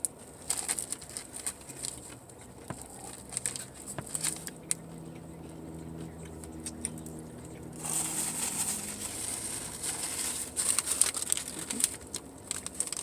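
Close-up eating: biting and chewing a double-toasted sandwich, with crunchy crackles and wrapper crinkling. A low closed-mouth hum runs for a few seconds in the middle.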